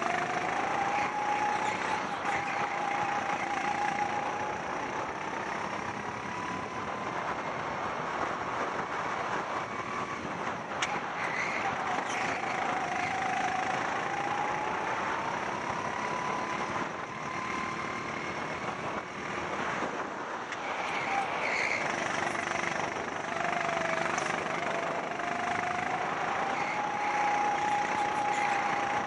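Rental go-kart engine at full throttle on a flying lap. Its pitch climbs steadily along each straight and drops back as the kart slows for the corners, three times over.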